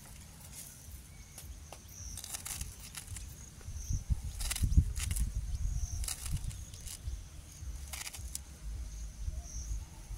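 Outdoor background sound: an uneven low rumble, scattered sharp clicks and knocks, and a faint high chirp repeating every couple of seconds.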